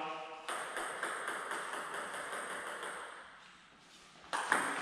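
Table tennis ball play: sharp hollow clicks of a celluloid ball on paddle and table near the end as a serve is played and returned, after a fading stretch of faint ticking.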